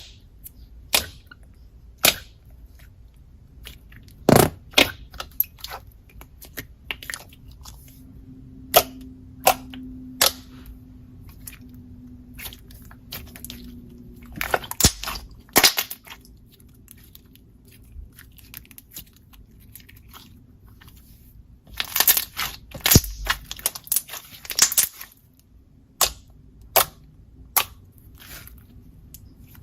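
Slime being squeezed and poked by hand, giving irregular sharp clicks and pops, with a dense cluster of them near the end.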